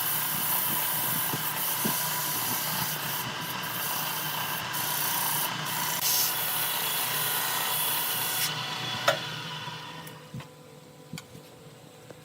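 Sandpaper rubbing against a workpiece spinning on a wood lathe: a steady hiss over the lathe's low hum. The hiss stops about eight and a half seconds in, followed by a sharp click and a few light ticks while the hum goes on.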